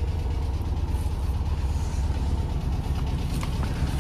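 Classic Volkswagen Bus engine idling with a steady, fast low pulsing.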